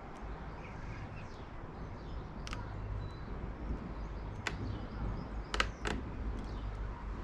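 A few sharp clicks of small bicycle headset parts being handled while the bearings are greased and fitted, the loudest pair about five and a half seconds in, over a low steady rumble.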